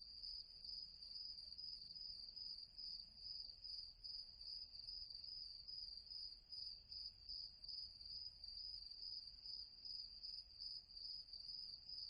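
Crickets chirping in a steady, evenly pulsing high trill, a night-ambience sound effect.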